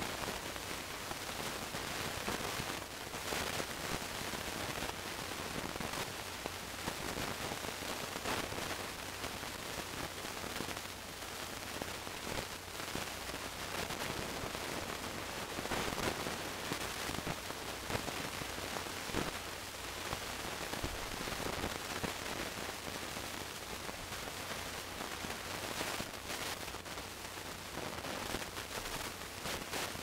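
Steady static hiss with scattered faint crackles and a low steady hum underneath; no music or speech can be made out.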